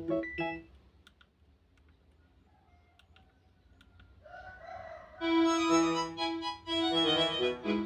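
Ringtones from a Nokia 110's small speaker: a synthesized melody cuts off under a second in, followed by a pause with a few faint clicks. About four seconds in a short, noisy call that rises in pitch is heard, then a new many-note ringtone melody starts just after five seconds.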